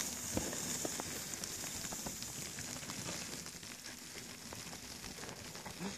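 Skis hissing over fresh snow as a skier glides away downhill, the hiss slowly fading as he moves off.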